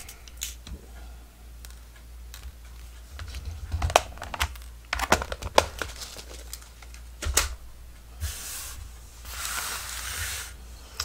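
Small metal eyelets and their backings clicking and clattering as they are picked out by hand, several sharp separate clicks, followed near the end by two stretches of crinkling rustle from handling packaging.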